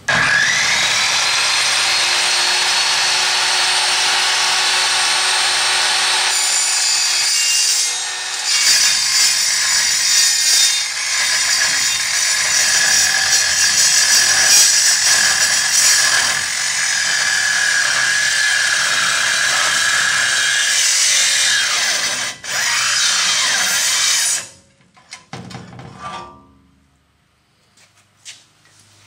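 Evolution Steelsaw 1 metal-cutting circular saw spinning up with a rising whine and cutting through 5/16-inch mild steel plate, a loud high screech of the blade in the steel. The noise wavers a few times, cuts out for a moment about 22 seconds in, runs again, then stops about two seconds later.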